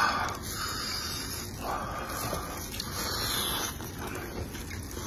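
Close-up slurping and chewing of saucy spicy instant noodles, several hissing slurps one after another.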